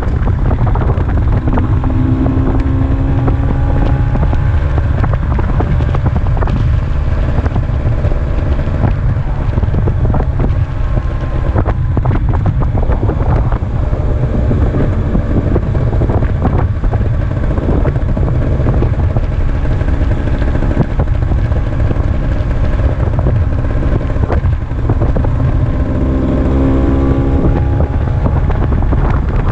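Vespa PX80 scooter with a DR136 Krüger cylinder kit on the move, its two-stroke single-cylinder engine running and its pitch slowly rising and falling with the throttle, under heavy wind buffeting on the microphone.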